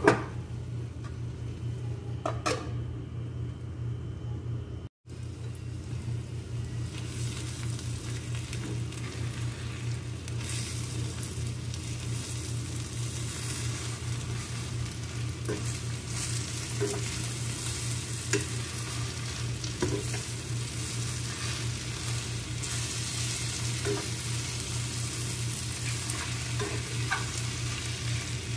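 Bitter gourd and beaten egg sizzling as they fry in a pan, while a metal spoon stirs and scrapes through them, tapping the pan now and then. The sizzle grows fuller after about seven seconds, over a steady low hum.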